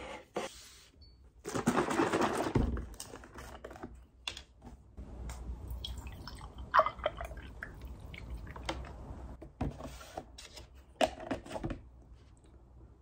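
Plastic wrap crinkling around a sandwich, then oat milk poured from a carton into a glass mug, among scattered light clicks and taps.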